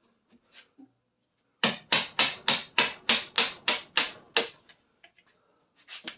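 About ten quick, hard hammer blows on metal in under three seconds, an even rapid rhythm of sharp strikes.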